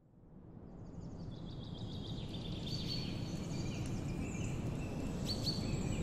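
Outdoor park ambience fading in: a steady low rumble of background noise with several birds chirping and singing over it.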